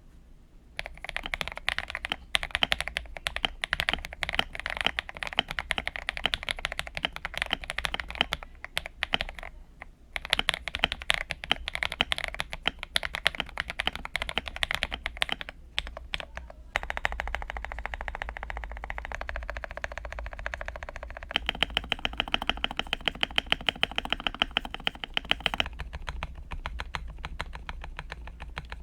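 Typing on a modded Feker IK75 Pro mechanical keyboard with lubed Akko Matcha Green switches, ASA-profile keycaps and foam, polyfill and tape mods dampening the case. Fast runs of keystrokes come with short pauses, then a long even run of rapid strokes, then scattered single key presses near the end.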